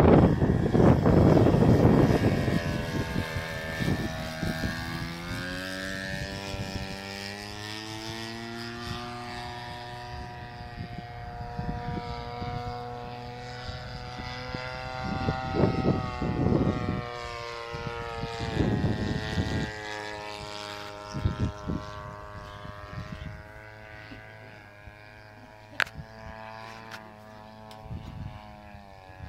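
Radio-controlled scale model of the Dormoy Bathtub in flight, its motor and propeller giving a steady droning note that rises in pitch during the first several seconds and fades toward the end. Wind buffets the microphone, hardest in the first two seconds, with a few shorter gusts later.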